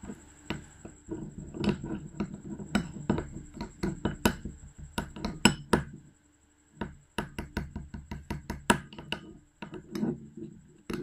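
Metal spoon stirring a thick paste of gram flour and milk in a fluted glass bowl, clinking and scraping against the glass in quick, irregular strokes, with two short pauses.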